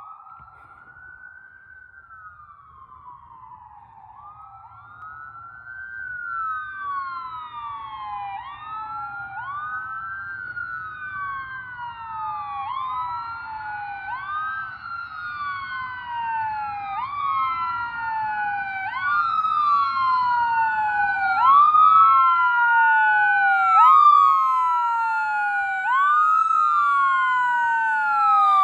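Two electronic wail sirens of an ambulance and a fire chief's vehicle on an emergency response, out of step with each other. Each sweeps up and down about every two seconds, growing steadily louder as they approach, with a faint engine rumble underneath.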